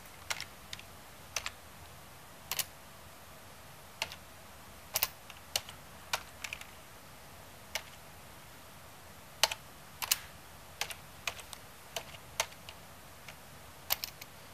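Slow, hesitant typing on a computer keyboard: single key presses at uneven intervals, about one or two a second, as letters are entered one at a time.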